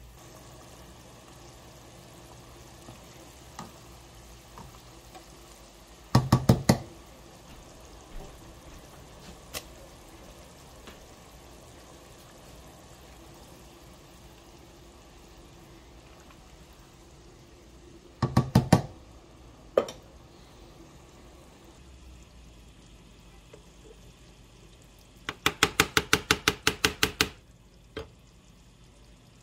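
Quick runs of sharp knocks in a kitchen: a handful of rapid strikes twice, then a longer fast run of about a dozen near the end, over a faint steady hum.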